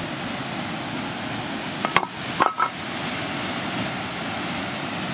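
Waterfall rushing steadily, with two short chirps about two seconds in.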